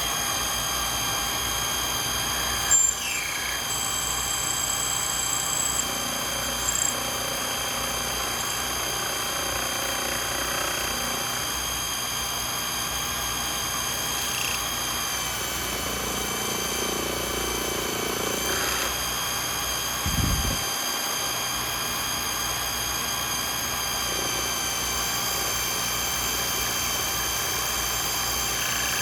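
Sherline/Craftsman micro lathe running steadily under its electric motor, a constant whine made of several steady tones, with a couple of brief sharp sounds near the start and a short low thump about two-thirds of the way through.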